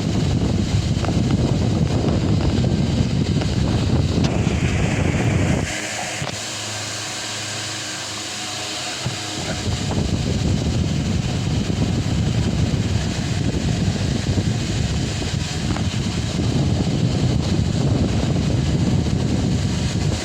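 Delta Gold 50 cm wall fan running, its airflow buffeting the microphone with a low rumble over a steady hum. The buffeting eases off about six seconds in and comes back about four seconds later.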